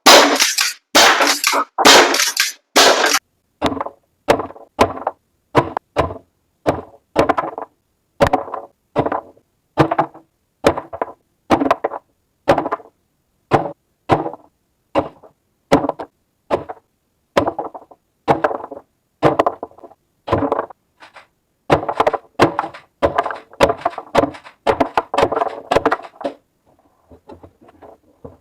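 Umarex HDX68 .68-calibre CO2 pump-action shotgun fired over and over, about one shot a second. The first few shots are loud, sharp cracks. After about three seconds they turn to weaker, duller pops as the CO2 runs out, and they stop near the end.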